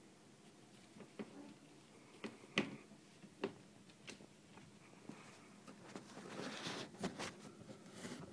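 Kittens scrabbling in a clear plastic storage bin: paws and claws scratching and tapping on the plastic, with a few sharp knocks in the first half and a longer burst of scrabbling near the end.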